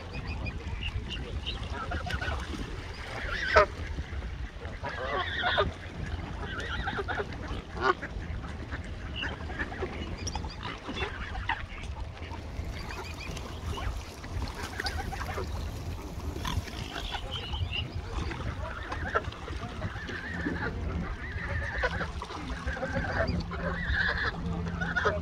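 A crowd of waterbirds, mostly coots and mute swans with mallards and a Canada goose among them, calling over one another in many short, overlapping calls, one louder call about three and a half seconds in.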